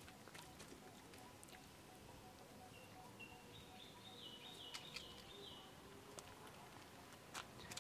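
Near silence: faint outdoor ambience with scattered light ticks and taps. Through the middle comes a faint, high, thin call that steps up and down in pitch for about three seconds.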